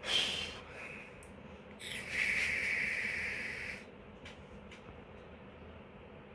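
Puffing on an Oxva X pod vape set to 20 watts: a brief sharp rush of breath at the start, then a louder airy hiss of about two seconds from about two seconds in.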